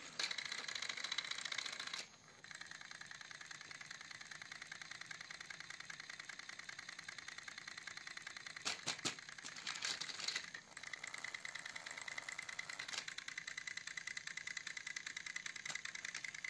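Battery-powered Plarail toy locomotive motors whirring and their gears rattling as two engines push head to head on plastic track, wheels spinning under load. Louder for the first two seconds, with a few sharp clicks later on.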